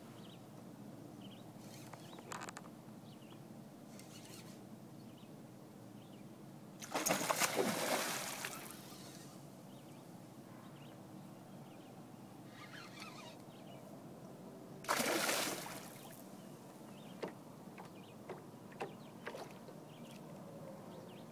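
Quantum Smoke baitcasting reel's drag buzzing as line is pulled off by a hooked northern pike, in two runs: a longer one about seven seconds in and a shorter one about fifteen seconds in. A few small ticks and light water sounds come between and after.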